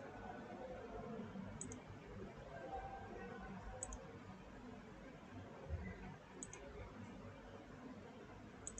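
Computer mouse buttons clicking: four short, sharp clicks about two seconds apart, each a quick double tick of press and release, over faint room noise.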